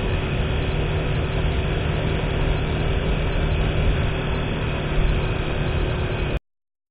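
Steady running noise of the vehicle carrying the camera: engine drone mixed with road and wind noise, heaviest in the low end. It cuts off suddenly near the end.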